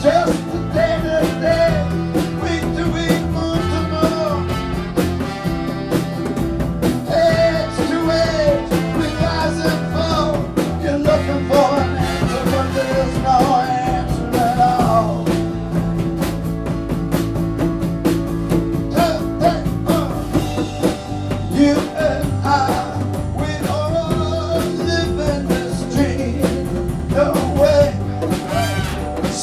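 Live rock band with a horn section playing an instrumental passage: a wavering lead melody line over drums, bass and guitar.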